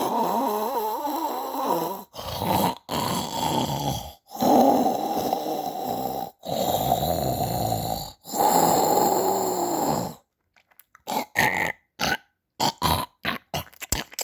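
Snoring: a run of snores of about two seconds each, with sudden silent gaps between them, then a few shorter, broken sounds near the end.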